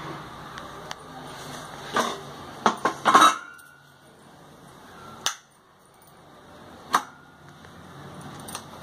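Handling of a Panasonic electric rice cooker: a scattering of sharp knocks and clicks as the lid is set on the pot and the cooking switch is pressed. There is a cluster of them about two to three seconds in and single ones later, two with a brief metallic ring.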